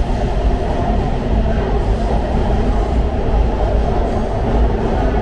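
Los Angeles Metro D Line subway train running, a steady loud rumble of wheels on rail with no pauses or distinct clacks.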